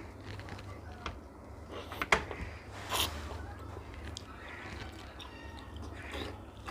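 Wet chewing and squishing of syrup-soaked Bengali sweets such as rasgulla and gulab jamun being eaten without hands, with a few sharp clicks, the loudest about two and three seconds in, over a low steady hum.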